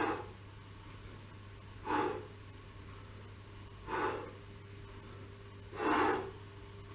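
A man breathing out hard once with each knee push-up, about every two seconds: four breaths in all. A steady low hum runs underneath.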